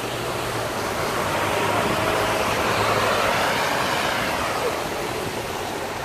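Traffic on a rain-wet street: a double-decker bus drives past with a low engine hum and steady tyre hiss. The hiss swells to its loudest two to three seconds in, then eases.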